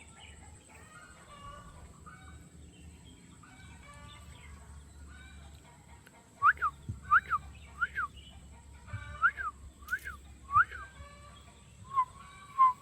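A run of about ten loud, short whistled chirps, each a quick rise and fall in pitch, starting about six seconds in and coming roughly twice a second. Near the end come two longer, steady whistled notes. Before the chirps there is only faint background chirping.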